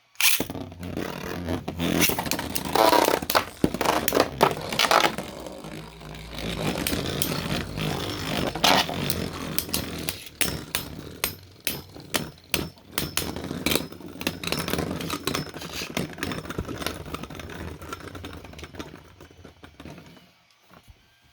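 Beyblade spinning tops battling in a stadium, one of them a 3D-printed Allmax: a continuous scraping whir of the tips on the stadium floor with many sharp plastic clacks as the tops collide. The sound dies away near the end as they spin down and stop.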